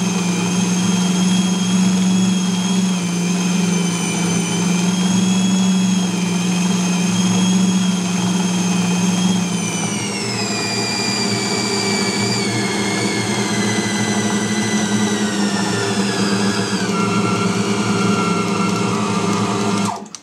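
Tabletop bowl cutter running, its motor and knives chopping pork sausage meat into a smooth emulsion, with a steady hum and a high whine. From about halfway the whine drops in pitch in a few steps, and the machine cuts off right at the end.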